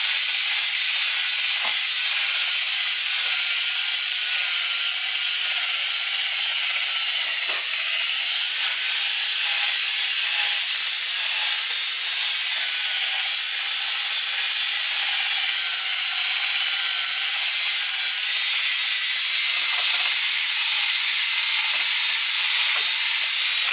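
A drill spinning a 500-grit sanding disc on a soft pad against a plastic headlight lens: a steady, loud abrasive hiss over a faint wavering motor whine. This is the first dry-sanding pass of a headlight restoration.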